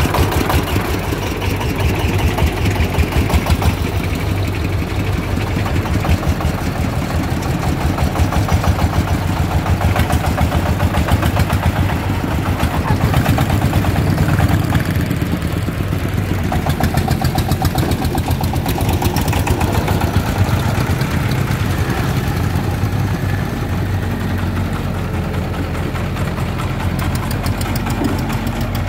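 Single-cylinder diesel engine of a công nông three-wheeled farm truck idling, a steady rapid beat of firing strokes.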